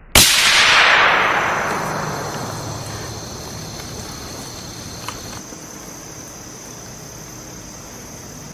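A single shot from a Browning T-Bolt .22 LR rifle, a sharp crack followed by a long tail that fades away over several seconds.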